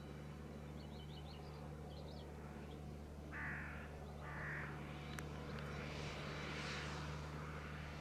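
JCB Fastrac 2155 tractor engine running at a steady drone under load while ploughing. Over it a crow gives two harsh caws, about three and a half and four and a half seconds in, a few faint bird chirps come about a second in, and a rising hiss swells in near the end.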